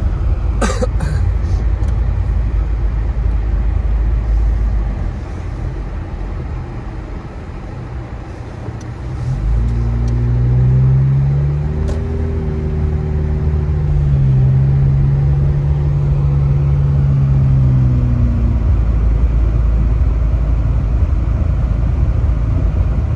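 Car engine and tyre noise heard from inside the cabin, driving on a snow-covered road. The sound drops off for a few seconds from about five seconds in. The engine note then rises as the car speeds up again, rises once more about fourteen seconds in, and holds steady. There is a sharp click about a second in.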